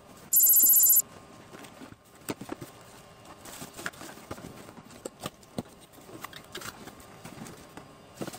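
A loud, high-pitched electronic beep lasting under a second near the start, then scattered knocks, taps and rustles of cardboard boxes and plastic bullet cameras being handled.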